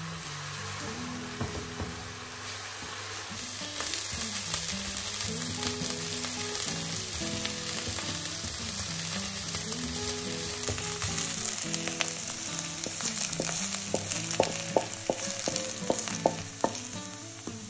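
Diced onion frying in olive oil in a nonstick pan, sizzling steadily as it browns and is stirred with a wooden spatula. The sizzle grows louder about four seconds in, and sharp scrapes and taps of the spatula on the pan come near the end.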